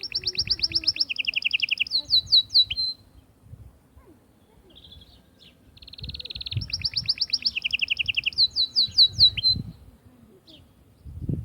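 Canary singing two long phrases of rapid, rolling trills, each about three seconds long and shifting between higher and lower pitched trills, with a pause and a few single notes between them.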